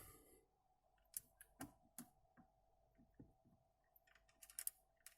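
Faint, scattered light clicks and taps from interior trim parts being handled during reassembly of a car's center console, bunched into a quick run near the end, over a faint steady hum.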